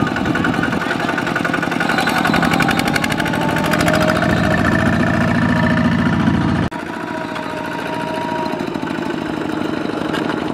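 Kubota ZT120 walking tractor's single-cylinder diesel engine running under load as it hauls a trailer piled with rice sacks up an embankment, with a steady, rapid pulsing beat. About two-thirds of the way through the sound drops abruptly and carries on quieter.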